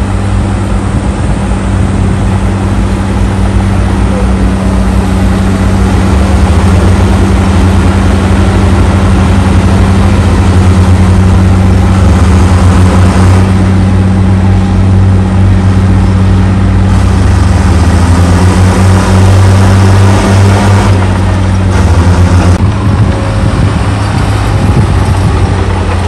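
Crawler bulldozers' diesel engines working, a loud steady low drone with a deep hum that shifts slightly in pitch a few times as the machines push dirt.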